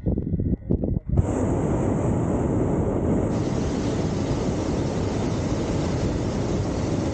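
Hot air balloon propane burner firing: a loud steady blast that starts abruptly about a second in and holds, after a few low gusts of wind buffeting the microphone.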